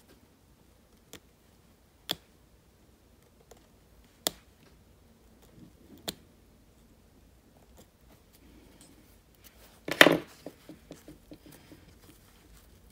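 Seam ripper cutting basting stitches out of bias-tape piping: a few sharp snips a second or two apart. About ten seconds in comes a louder rip, followed by a quick run of small clicks as more stitches give.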